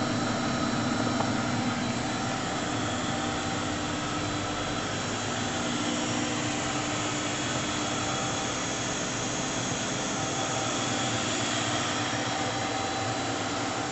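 Steady mechanical whirring hum with a few constant tones and no change in level, like fans or ventilation running in a machine shop.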